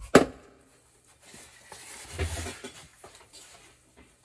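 A sharp click just after the start, then faint rustling and light handling noises, with a small tick near the end, as things are fetched and set down on a workbench.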